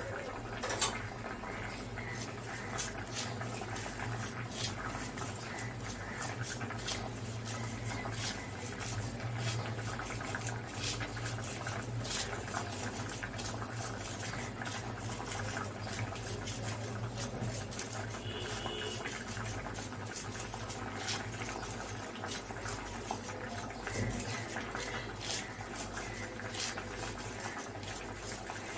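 A metal spoon scraping and stirring ground fennel seed and sugar through a mesh sieve. The scraping is steady, with many small clicks of the spoon against the mesh and rim.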